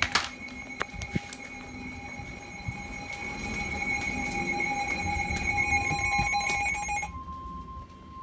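NOAA Weather Radio alert signal played over the receiver's speaker. A steady electronic alarm tone lasts about seven seconds, then switches to a single steady warning alarm tone of the kind that comes before a broadcast warning.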